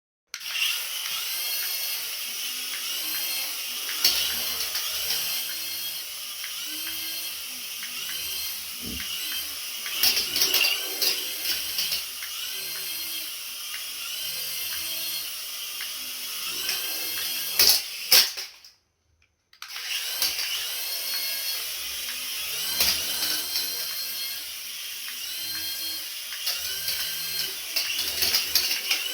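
Small electric toy motor whirring with a high whine and gear rattle, its pitch rising and falling over and over. It cuts out for about a second about two-thirds of the way through, then runs on.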